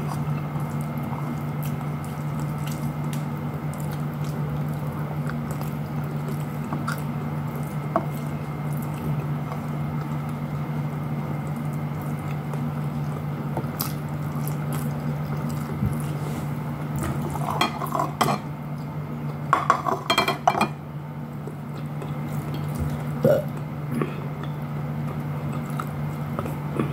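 Eating by hand from a plate: fingers picking up fish and rice, chewing and small clicks of food and dishware, with a few quick clusters of plate and dish clinks about two-thirds of the way in. A steady low hum runs underneath.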